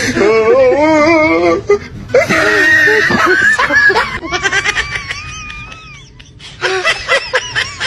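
People's voices laughing and wailing, with music underneath and a long wavering whine partway through.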